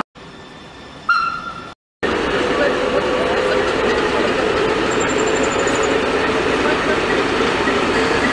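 A short beep-like tone about a second in. Then, after a brief gap, the steady running noise of a train with a constant hum.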